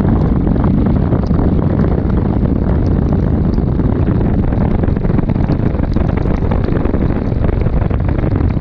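Steady, loud wind rush buffeting the microphone of a camera on a moving Kawasaki KLR 650 motorcycle, with the bike running underneath. A few faint ticks are scattered through it.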